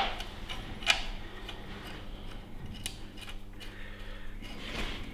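Metal clinks and clicks as an alternator is offered up against its mounting bracket on a Mercedes OM648 engine: one sharp click about a second in, then a few lighter ticks.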